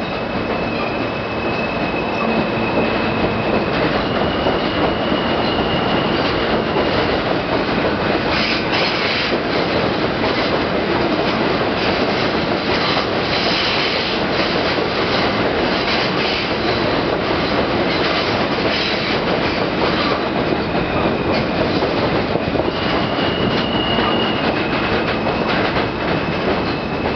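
R160B subway train rolling along the platform on elevated track: a steady loud rumble and rattle of steel wheels on rail. A high wheel squeal runs through the first several seconds and returns near the end, and there is a stretch of rapid clatter in the middle.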